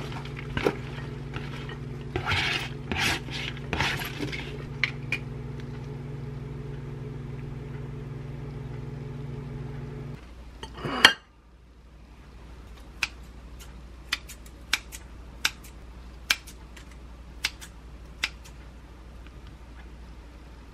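Microwave oven running with a steady hum while salad is tipped from a paper container onto a plate, with a few rustling, scraping strokes. The hum stops about ten seconds in, and a single sharp clack follows. After that come a string of light clicks and taps of dishes.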